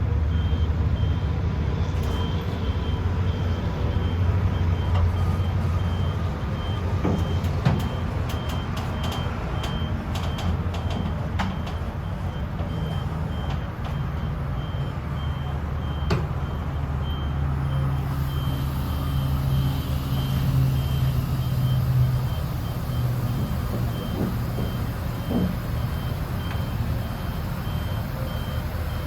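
Cab-over truck's Cummins diesel engine running steadily under load, with an evenly repeating high-pitched beep throughout. The engine note strengthens a little about two-thirds of the way through.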